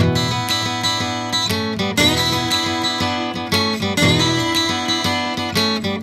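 Background music: a strummed acoustic guitar, with new chords every second or two.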